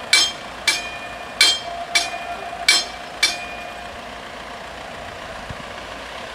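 Level-crossing warning bells striking, about two ringing strokes a second, then falling silent a little over three seconds in. Underneath, a steady low engine hum from waiting traffic.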